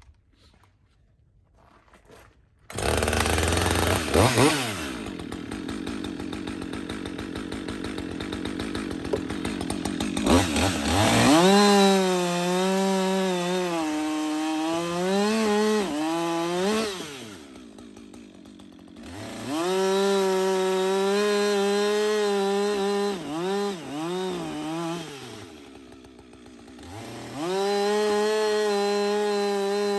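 Chainsaw cutting pine sawmill cutoffs for firewood. It comes in suddenly about three seconds in and runs at high revs, its pitch sagging and recovering as the chain bites. It drops to a lower idle twice between cuts before revving up again near the end.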